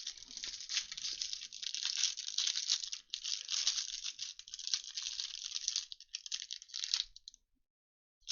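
Plastic trading-card pack wrapper being torn open and crinkled as the cards are handled, a dense uneven crackle that stops about seven seconds in.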